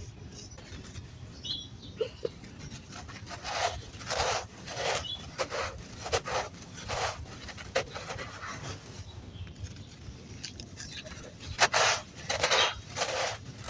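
Dry red sand crunching in a series of short, irregular, gritty crunches, sparse at first and louder near the end.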